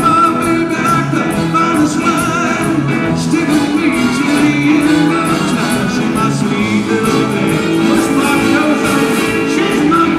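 A live rock band playing, with electric guitars, drums and trumpets, and singing over the top.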